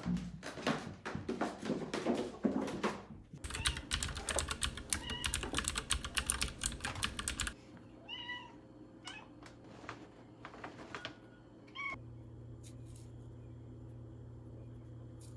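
Cat meowing: one short call about eight seconds in and another near twelve seconds. Before that come several seconds of footsteps and knocking, then a dense run of fast clicking and rattling for about four seconds. A low steady hum sets in near the end.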